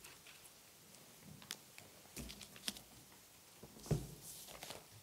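Faint, scattered knocks and clicks of movement and handling in a quiet room, with one louder thump about four seconds in.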